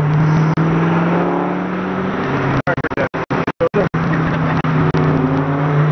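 Car engine running with a steady low drone, heard from inside the car, easing off a little about two seconds in. Around the middle the sound cuts out in several brief gaps before the drone comes back.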